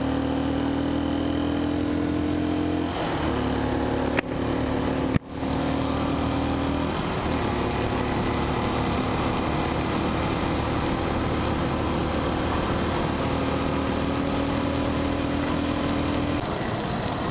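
Motorcycle engine running at steady revs while riding, over a constant rush of wind and tyre noise on a wet road. A sharp click about four seconds in, and the sound briefly cuts out a second later.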